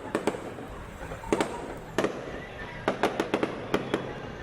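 Aerial fireworks bursting: a dozen or so sharp bangs at irregular intervals, bunched together around three seconds in.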